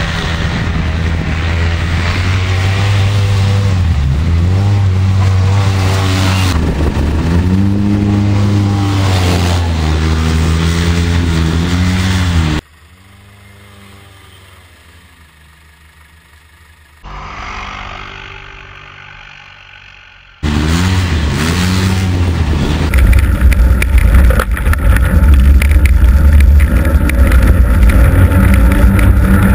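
Polaris Ranger RZR side-by-side engine revving up and down again and again as it is driven hard on snow. About 13 seconds in, the engine sound drops much quieter for several seconds. It then comes back loud and rough, heard close from on board.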